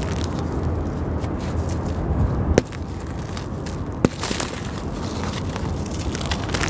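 Hands crushing and crumbling dry sand-cement chunks: a continuous gritty crunching with crumbs pattering down, and two sharp cracks, about two and a half and four seconds in, as pieces break off.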